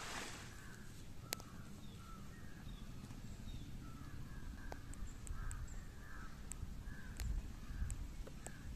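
Birds calling over and over, short calls spaced through the whole stretch, over a steady low rumble with a few faint clicks.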